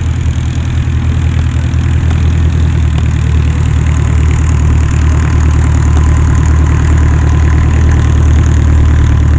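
Piston-engine propeller aircraft idling: a loud, steady low engine note with a fast, even pulse, growing slightly louder toward the end.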